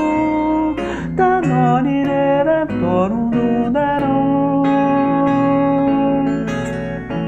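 Acoustic guitar played with plucked strings under a man's wordless sung melody, with long held notes that slide from one pitch to the next.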